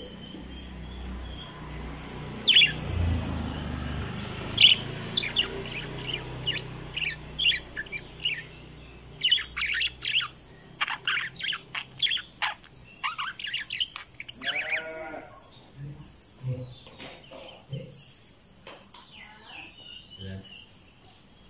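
Parakeets chirping: many short, sharp, high calls, sparse at first and crowding together from about nine to fourteen seconds in, over a steady, pulsing high-pitched hum. A lower, wavering call sounds about fourteen seconds in.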